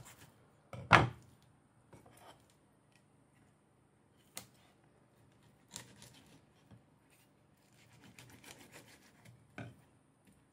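Kitchen knife cutting a grunt fillet away from the backbone on a wooden cutting board: scattered scrapes of the blade along the bones and light knocks on the board, with one louder thump about a second in.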